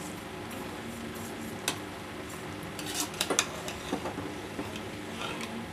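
Metal spoon stirring grated bottle gourd cooking in milk in a metal pot, scraping and clinking against the pot, with a few sharp clinks near the middle.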